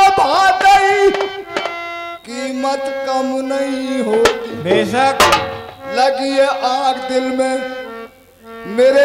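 Live folk music: a man singing over held, steady instrument notes, with two sharp drum hits near the middle.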